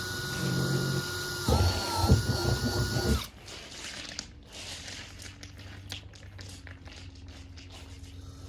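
Power drill running with a steady motor whine while boring a drainage hole in the bottom of a planter, with a rough grinding as the bit cuts through. It stops about three seconds in, followed by faint clicks of handling.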